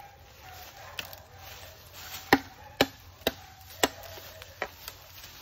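A blade chopping into bamboo, about six sharp strokes at uneven intervals; the strokes in the middle are the loudest.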